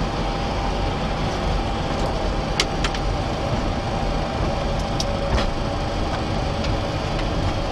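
Flight-deck noise of a Boeing 737-400 rolling out along the runway after touchdown: a steady rumble and rush from its CFM56 engines and wheels, with a faint steady whine and a few sharp clicks.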